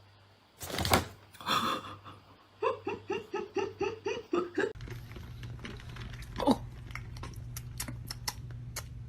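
A person laughing in a quick run of ha-ha bursts, after a sudden loud noise. Then a steady low hum with scattered light clicks.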